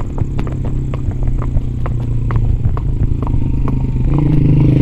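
A horse's hooves clopping on a paved road at a walk, a few sharp clicks a second, over the steady hum of a vehicle engine that grows louder near the end.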